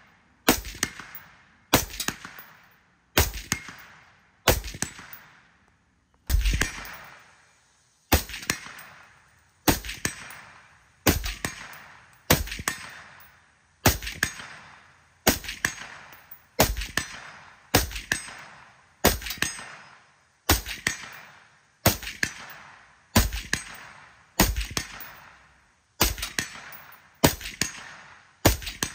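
A suppressed Black Rifle Arms C.A.P.S. external-piston AR-style rifle fires a steady string of single shots, about one every second and a half. Each shot trails off in echo.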